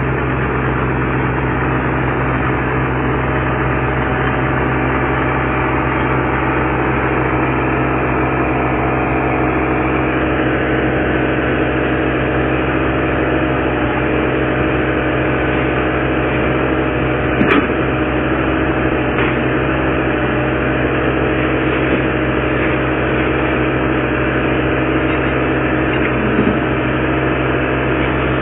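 Diesel engine of a Caterpillar mini excavator running at a steady, unchanging drone, with one sharp click about two-thirds of the way through.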